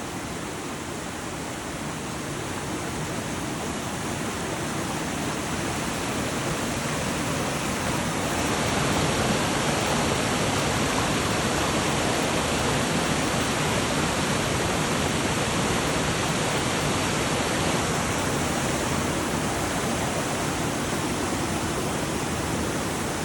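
Waterfall: a steady rush of falling water, growing gradually louder over the first several seconds and then holding steady.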